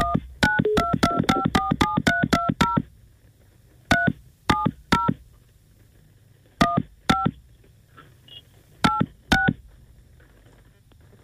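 Phone keypad touch tones (DTMF) as a number is dialed. A quick run of about a dozen short key beeps comes in the first three seconds, then more beeps in twos and threes with pauses between.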